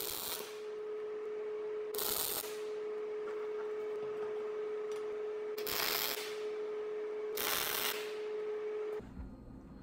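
MIG welder arc on steel flat bar, crackling steadily with three louder bursts about 2, 6 and 7.5 seconds in, over a steady hum; it all stops shortly before the end.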